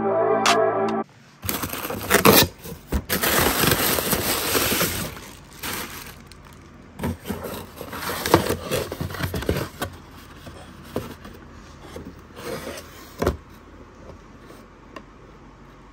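A cardboard box being unpacked by hand: paper and cardboard rustling and scraping, loudest in a run of crackling a couple of seconds in, then lighter rustles and a few sharp knocks that fade off. Music plays for the first second before cutting out.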